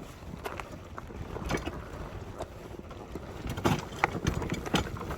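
Wind buffeting the microphone as a low rumble, with scattered light clicks and scrapes that cluster about three and a half seconds in.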